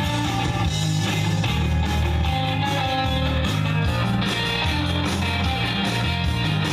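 A song with guitar played loudly from a laptop through a 1964 McMartin-built Muzak tube amplifier, with two 6V6 output tubes, into a 16-inch Pioneer woofer. The music is heard through the room, with a little digital rasp.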